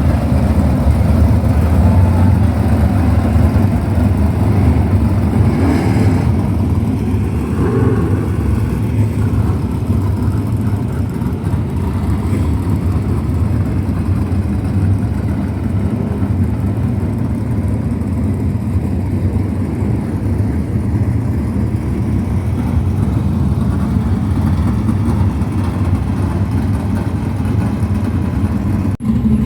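Race car engines running at a speedway: a loud, steady engine drone, with a couple of short rises in pitch about six and eight seconds in.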